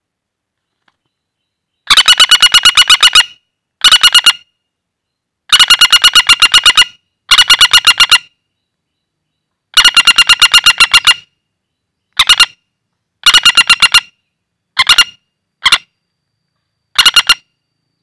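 Common flameback woodpecker calling in the hand: about ten loud, dry rattling series of quick repeated notes, roughly eight a second, each lasting from a split second to about a second and a half, with short pauses between.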